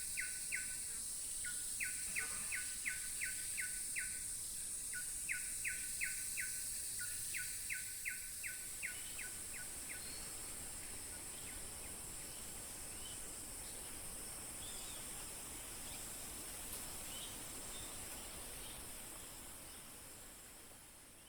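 Tropical jungle ambience: a steady high-pitched insect drone, with runs of rapid chirps, about five a second in groups of six to eight, during the first half. After that come only faint scattered distant bird calls, and the whole fades out at the end.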